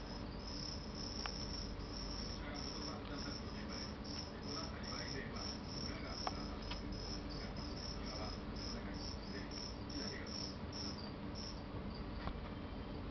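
Cricket chirping: a steady run of short, high chirps about two a second that falls quiet near the end, over a low steady hum.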